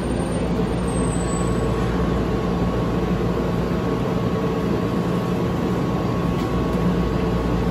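Steady hum of a city tram standing at the stop, with a faint steady whine that sets in about a second in.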